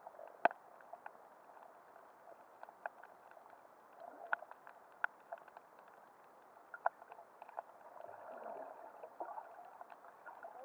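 Muffled underwater ambience picked up by a submerged camera: a steady hiss with scattered sharp clicks and crackles, the loudest click about half a second in.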